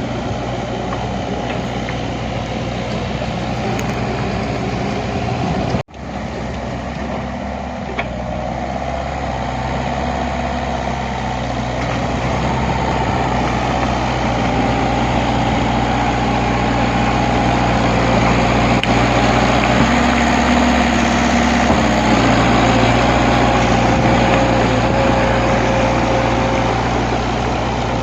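A heavy engine running steadily, cut off for an instant about six seconds in.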